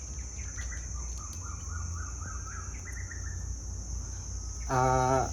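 Steady high-pitched cricket chirring over a low hum, with a run of short chirps that step up in pitch from about half a second in until about three seconds in.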